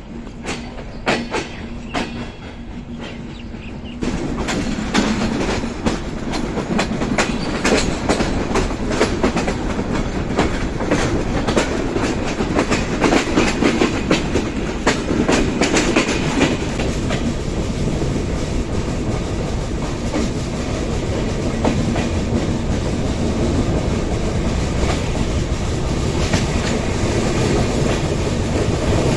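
Dhaka–Benapole Express passenger train running, heard from on board: wheels rumbling and clattering over rail joints with a dense run of clicks. About four seconds in the sound jumps suddenly louder.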